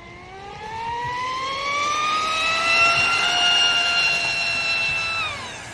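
High-pitched whine of an RC mono-hull speed boat's TP4070 brushless motor on 6S LiPo power at full throttle. It rises in pitch as the boat accelerates, holds steady, then falls and fades near the end.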